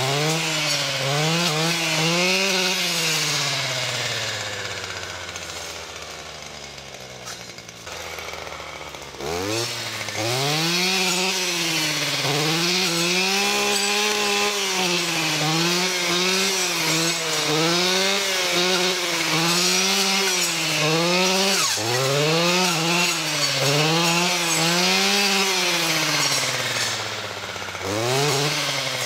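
Stihl FS 240 C-E two-stroke brushcutter cutting through saplings, its engine pitch rising and falling every second or two as the throttle is worked and the blade takes load. Early on the engine winds slowly down towards idle, then revs back up about nine seconds in; it dips briefly again near the end.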